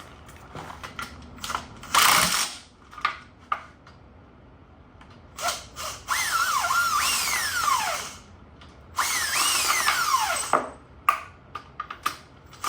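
Cordless power tool spinning out the last two bell housing bolts holding the transmission to the engine. There is a short burst about two seconds in, then two longer runs, each with the motor's whine rising and then winding down as the trigger is let go.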